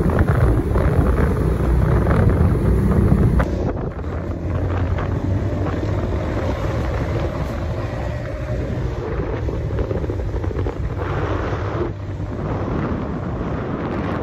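Wind buffeting the microphone on a moving motorcycle, over a steady low rumble of engines and tyres from the road traffic, including large trucks close alongside. The rumble drops suddenly a few seconds in.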